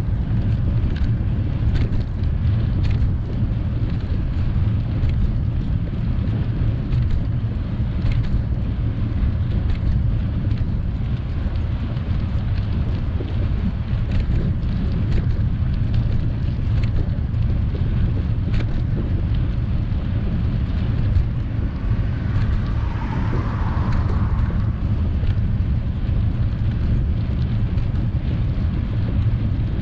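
Steady low rumble of wind buffeting the microphone of a bicycle-mounted camera while riding along a paved path, with faint clicks and rattles from the bike.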